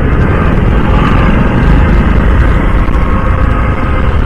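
Ride noise from a Honda CD 110 motorcycle under way in city traffic: the small single-cylinder engine running under a steady rush of wind on the microphone.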